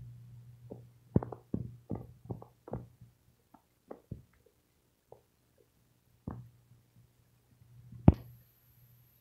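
A low hum that fades out in the first second, then a quick run of soft knocks and clicks that thins out, and one sharp, louder click near the end followed by a faint high whine.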